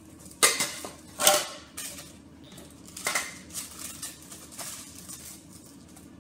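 Metal cake tin with a removable base knocking and clattering as it is handled and pressed into while being lined with pastry: three sharp clanks in the first few seconds, then a few lighter taps.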